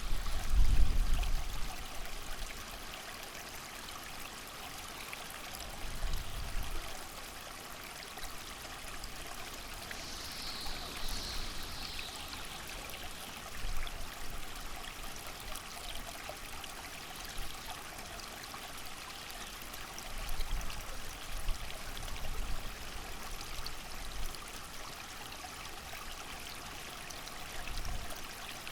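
Creek water running steadily, with low rumbling gusts of wind swelling up now and then.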